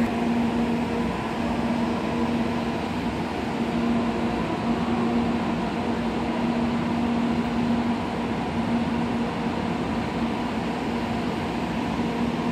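Early-type N700-series Shinkansen train standing at the platform, giving a steady hum with a low droning tone.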